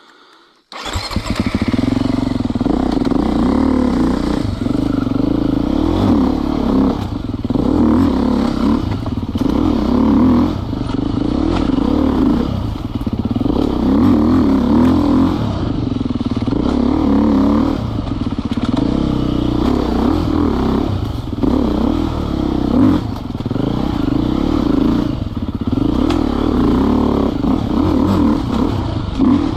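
Enduro dirt bike engine running as it is ridden on singletrack, revving up and easing off again and again, with some clatter. The engine comes in abruptly about a second in.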